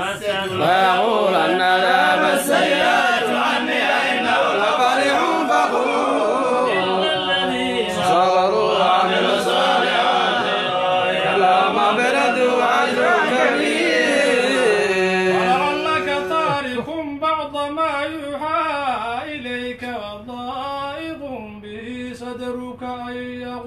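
Several men chanting together in unison, a wavering, ornamented melody. A little over two-thirds of the way through the group thins out and a quieter, smaller group of voices carries on.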